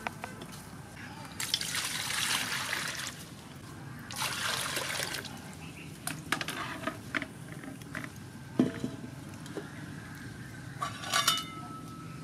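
Water poured into an aluminium cooking pot in two splashing pours, then a few light knocks and clicks. Near the end the pot's aluminium lid goes on with a short metallic clank and ring.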